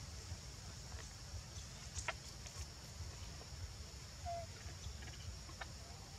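Quiet outdoor forest ambience: a steady high hiss with a low rumble beneath, a few sharp clicks (the loudest about two seconds in) and one short call about four seconds in.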